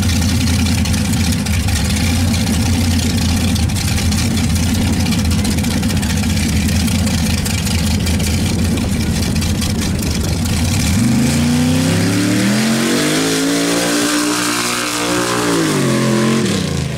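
Engine of a lifted mud-racing pickup idling steadily at the start line, then, about eleven seconds in, revving hard and rising in pitch as the truck launches down the mud track, before the pitch falls away near the end.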